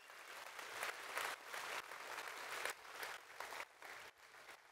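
Audience applauding, the clapping thinning out and fading toward the end.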